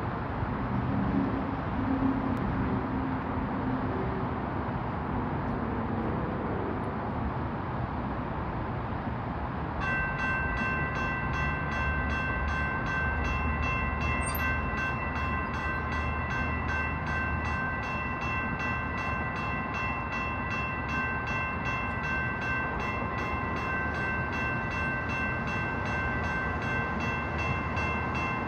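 Road traffic, then about ten seconds in the crossing's electronic warning bells, among them a Siemens high-tone e-bell, start up suddenly. They ring on in a fast, even, high-pitched repeating strike.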